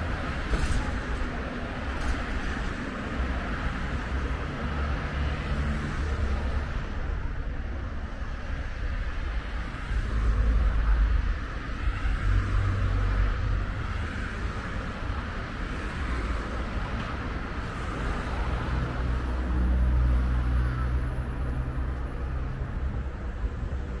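Road traffic: a steady low rumble of passing cars that swells louder twice, about ten seconds in and again near twenty seconds.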